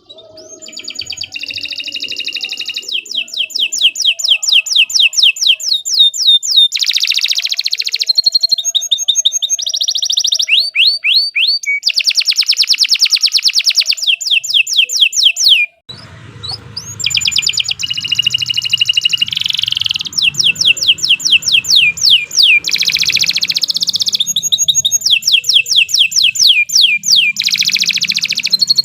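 Domestic canary singing a long, continuous song of fast trills and rapid runs of falling notes. The song breaks off sharply about halfway, then resumes over a low hum.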